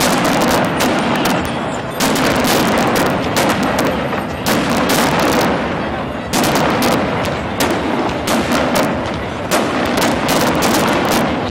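Fireworks display: volleys of sharp bangs and crackles from bursting aerial shells, several every second, over a continuous rumble.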